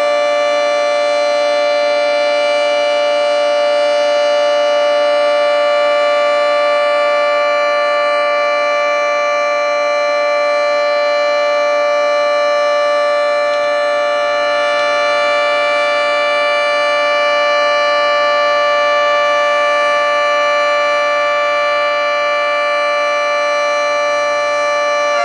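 Federal Signal 3T22 three-tone electromechanical outdoor warning siren sounding a steady chord at full speed, its loudness swelling and fading slightly as the rotating head sweeps around. It is sounding for a scheduled monthly test, not a real warning.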